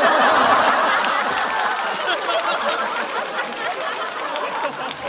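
Studio audience laughing hard at a punchline, with some clapping mixed in, loudest at first and slowly dying down.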